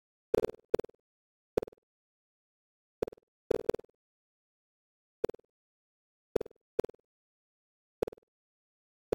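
Computer-generated bounce sounds: about ten short, pitched blips, each with a click at its start, at irregular intervals and some in quick pairs, with dead silence between.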